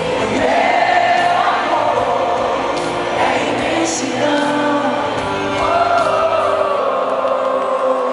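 Live concert ballad: the band playing with many voices singing the melody together, a stadium crowd singing along.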